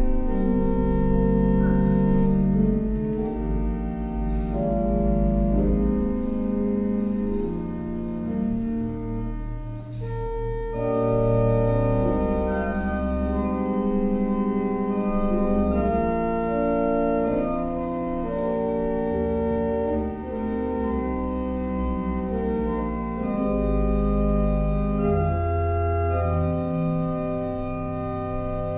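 Organ music: slow, sustained chords that change every second or so over held low pedal notes.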